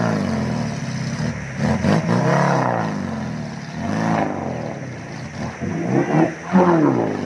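Off-road 4x4's engine revving up and down in several swells as the vehicle wades through a muddy river, with quicker rev blips near the end.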